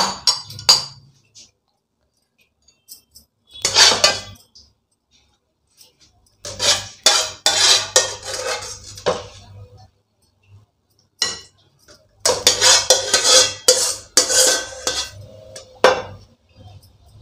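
Metal spoon scraping and clinking against a white ceramic serving bowl as it stirs and moves pieces of thick chicken curry. It comes in four bursts with short pauses between them.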